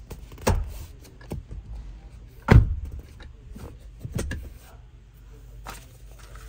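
A series of clicks and knocks from handling the car's interior trim. The loudest is a heavy thud about two and a half seconds in, followed by a quick pair of clicks a little past four seconds.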